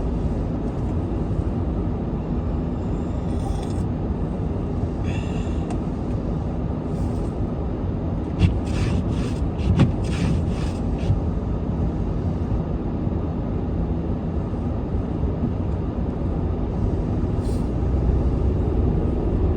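Steady low rumble of a car driving, heard from inside the cabin, with a brief run of light clicks about halfway through.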